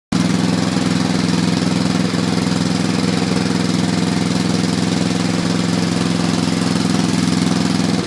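Small engine of a Struck MagnaTrac mini crawler dozer running steadily at a fairly fast speed.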